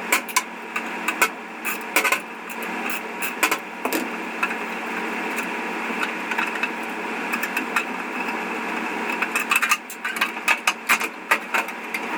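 Hand ratchet with a long Allen bit holder clicking as it backs out casing screws, with knocks of the screws and panels being handled, in clusters near the start and again in the last few seconds. A steady whirring noise runs underneath.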